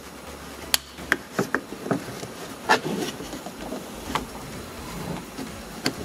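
Scattered sharp clicks and knocks of hard plastic, about nine in all, as a trim pry tool works at a plastic seat-belt anchor cover on a car's interior pillar trim, prying at its two retaining clips.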